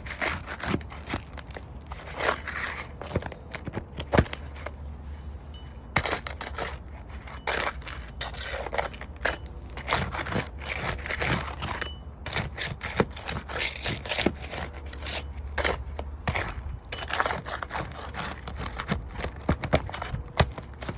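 Irregular scraping, clicking and cracking of tools working on an asphalt shingle roof: nails being pried out of shingles so brittle that they crack and break as they are lifted.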